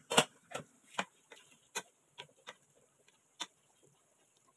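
Wooden spatula knocking and clicking against a metal pan while stirring sliced liver and onions: a string of irregular sharp clicks, the first the loudest, thinning out towards the end.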